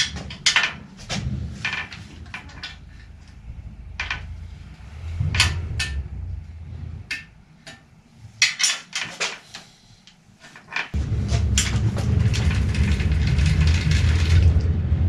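Scattered metallic clinks and knocks, like tools and parts being handled in a workshop. About eleven seconds in, a steady low rumble with a hiss starts abruptly.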